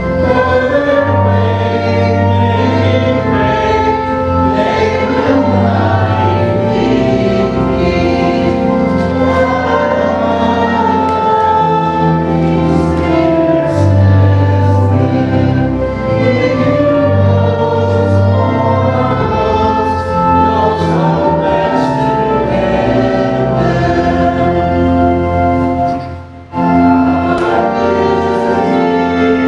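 A hymn sung by a congregation with organ accompaniment, the voices holding long notes. There is a brief break about 26 seconds in, between lines or verses.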